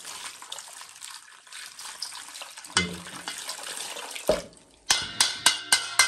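Water poured from a jug over a plastic tea strainer, splashing into a steel basin of soapy water. Near the end comes a quick run of sharp ringing knocks, about four a second.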